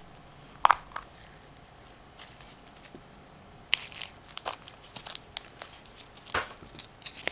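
Plastic gashapon capsule snapping open with a sharp click about a second in, then the crinkling of a thin plastic bag and a paper insert being handled, with a few more small clicks.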